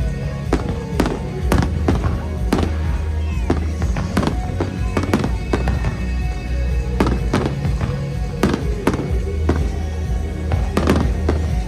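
Aerial fireworks bursting in a steady series of sharp bangs, about one or two a second with a short lull about six seconds in, over music playing along with the show.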